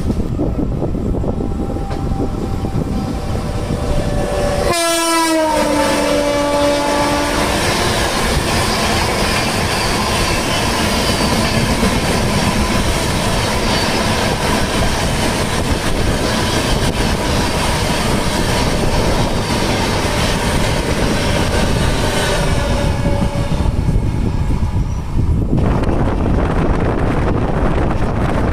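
Train running with the clickety-clack of its wheels. About five seconds in a train horn sounds, its pitch sliding down as a second train passes. The rush of the passing train goes on for about twenty seconds and cuts off suddenly near the end.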